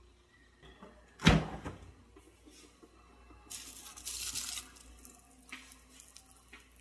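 A sharp knock about a second in, then a thin plastic bag rustling for about a second as it is grabbed and pulled off a refrigerator shelf.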